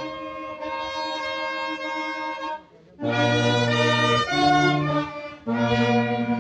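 Brass band playing slow music in long held chords, breaking off briefly just under halfway through and then coming back in.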